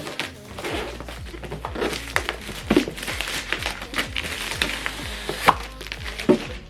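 Cardboard speaker packaging being handled and opened: a string of irregular knocks, taps and crinkles, with background music underneath.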